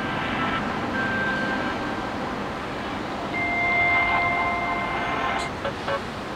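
Music playing through a smartphone's speaker, started and stopped from a paired smartwatch's music controls: a few sustained electronic notes, the longest held about two seconds, over steady background noise. A couple of short clicks near the end.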